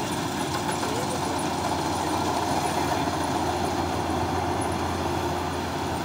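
MS-1200 tracked rice combine harvester running steadily while it cuts the crop: continuous engine and machinery noise.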